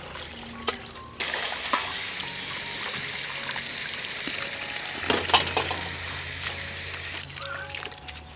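Water running from a plastic pipe spout onto a metal colander of aquatic plant greens and splashing into a metal bowl below. It starts suddenly about a second in and cuts off near the end, with a few sharp knocks about midway.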